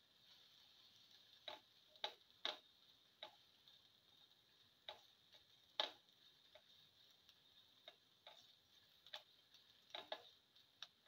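A spatula tapping and scraping against the pan while sliced onions and cumin seeds are stirred: irregular sharp clicks at uneven intervals over a faint steady hiss.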